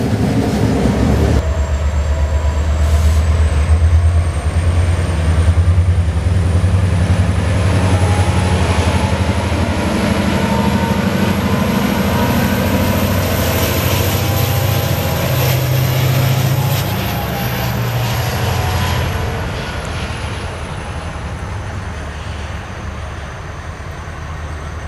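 CFR Class 64 diesel-electric locomotive running light past at close range, its diesel engine making a steady low hum with a high whine that rises slowly, then falls. The sound fades as the loco moves away in the last few seconds.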